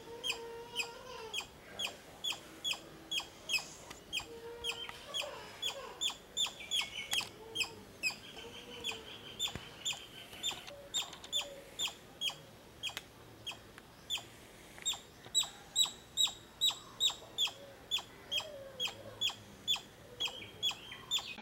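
Indian palm squirrel calling a sharp, bird-like chip over and over, about two to three calls a second without a break.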